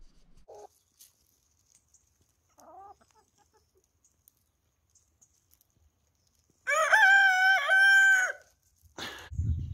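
Rooster crowing once, a loud cock-a-doodle-doo lasting about a second and a half, with a few faint short clucks before it. A short rustle and low thump near the end.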